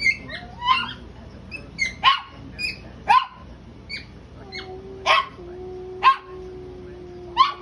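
Small dogs barking in play: short, sharp yaps about once a second, with a faint steady tone underneath from about halfway through.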